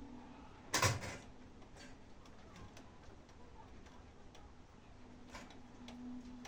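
Fire of long-dried wood crackling, with scattered small pops and one loud sharp crack about a second in.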